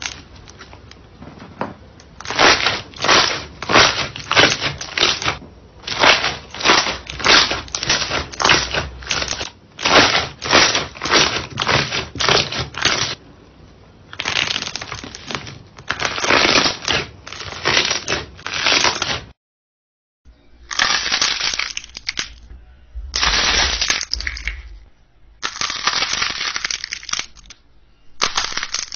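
Glossy slime being pressed and squeezed by hand, giving rapid crackling and popping in bursts with short pauses between them. There is a brief silence a little past two-thirds of the way through before the crackling resumes.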